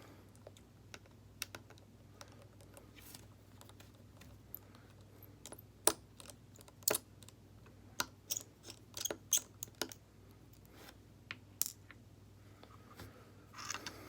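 Irregular small sharp clicks and taps of a screwdriver and small plastic and metal parts being handled while a smartphone is taken apart. The clicks are sparse at first and come thick and fast for a few seconds midway.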